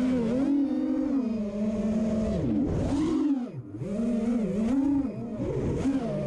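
FPV racing quadcopter's motors and propellers whining as heard from the onboard camera, the pitch rising and falling constantly with the throttle. About three and a half seconds in the pitch drops sharply and the sound dips briefly, as on a throttle cut, then climbs back.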